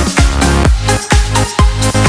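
Electronic dance music with a steady four-on-the-floor kick-drum beat and synth chords.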